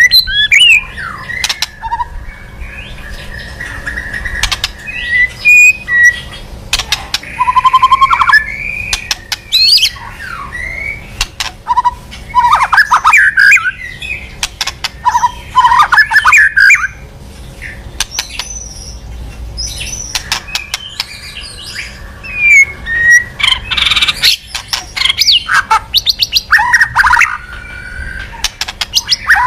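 White-rumped shama (murai batu) singing loudly: varied whistled phrases, rising and falling glides and rapid trills, broken by many sharp clicks.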